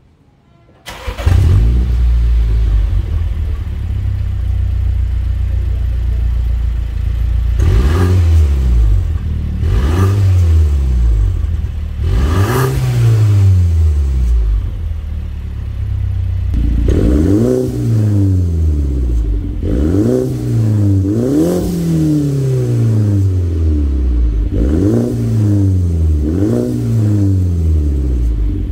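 Mini Cooper S turbocharged four-cylinder heard at the tailpipes of an aftermarket cat-back active exhaust with carbon-fibre twin tips. It starts up about a second in and idles. From about eight seconds in it is revved in short throttle blips, each rising and falling in pitch: three, then after a pause a run of about six more.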